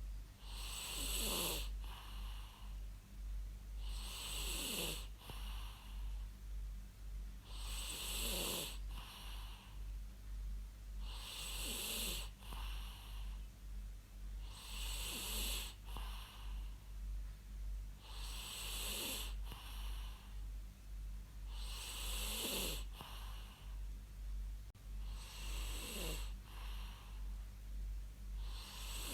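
A person snoring in a slow, even rhythm, about one snore every three and a half seconds. Each snore is a rasp that falls in pitch, together with a hissing breath. A steady low hum runs underneath.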